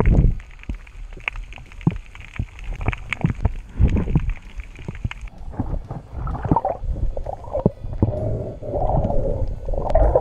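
Underwater sound picked up by a diver's point-of-view camera swimming over a reef: dull low thumps and scattered sharp clicks, changing a little past halfway to an irregular mid-pitched rumbling.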